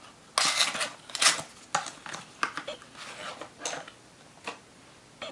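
Cardboard fragrance box being handled and opened: a series of short scrapes and rustles as the inner packaging is pulled apart and the bottle slides out.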